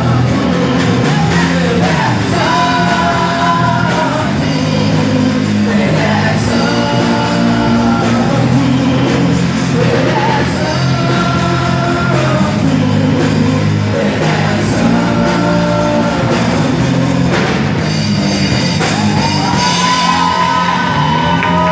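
Worship song sung over band accompaniment: phrases with long held notes over a steady bass line and cymbals.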